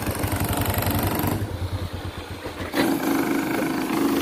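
Motorcycle engine running at low speed with a low, rapid pulsing as the bike rolls slowly. About two-thirds of the way through the sound changes abruptly to a steadier hum.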